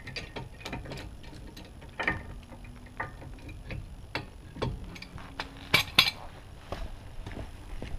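Irregular metallic clicks and clinks of a large C-clamp being worked and taken off a Jeep Grand Cherokee's disc brake caliper after pushing the caliper piston back. Two louder clanks come close together about six seconds in.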